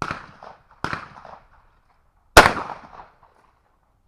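Blaser over-and-under shotgun firing a loud shot at a clay a little over two seconds in, after two fainter sharp cracks at the start and about a second in.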